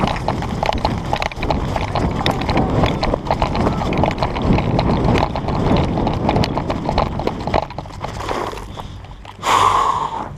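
Quick, irregular footfalls and clicks of someone running on the ground for about eight seconds. About nine and a half seconds in comes one short, louder rush of noise.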